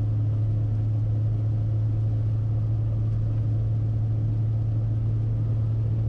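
An engine running steadily, a loud even drone with a strong low hum, starting abruptly.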